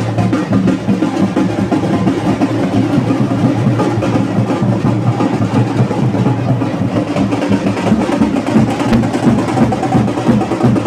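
Fast, unbroken drumming with sharp, rapid strikes, typical of street percussion played for a Muharram procession.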